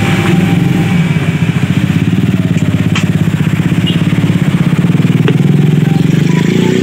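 A small engine running steadily with a fast, even pulse, with a couple of faint sharp clicks about three and five seconds in.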